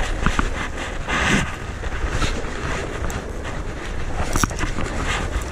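Wind buffeting the microphone over the wash of the sea, with a few brief clicks.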